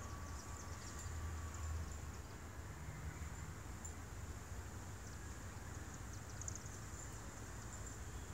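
Quiet outdoor ambience: a faint, steady, high insect drone with a few short high chirps scattered through it, over a low rumble.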